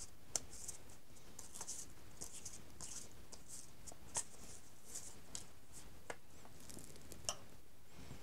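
Applicator brush of a can of paper (rubber) cement spreading glue on a construction-paper circle: faint soft scratchy brush strokes with a few light clicks and taps.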